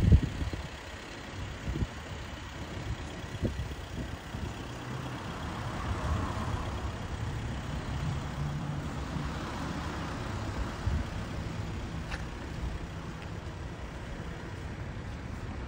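Road traffic noise: vehicles passing on the road, the sound swelling and fading twice, over a steady low rumble, with a few short low thumps in the first few seconds.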